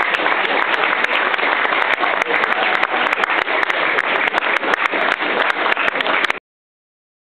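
Crowd applauding: dense, steady clapping that cuts off suddenly near the end.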